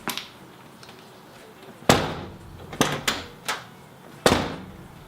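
Mazda Miata NA's door being worked: a sharp click at the start, a solid slam about two seconds in, three lighter clicks, and a second slam a little past four seconds.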